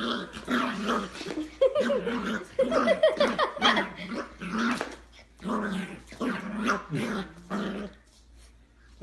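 A dog growling and barking in a string of short vocal bursts, dying away about eight seconds in.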